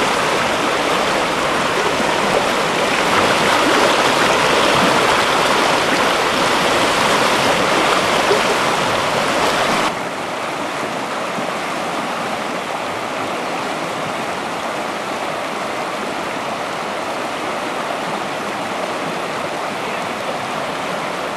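River water rushing over rocks in a whitewater rapid, a steady noise. About ten seconds in it drops suddenly to a quieter, steady rush.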